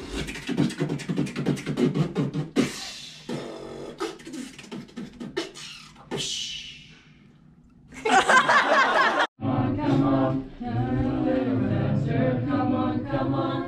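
Beatboxing: rapid percussive mouth sounds, kick-and-snare clicks mixed with hums and hissed cymbal sounds. After a cut about nine seconds in, an a cappella group sings sustained chords in harmony.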